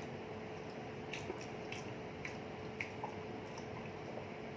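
People chewing food with the mouth, soft wet clicks and smacks about twice a second, over a faint steady hum.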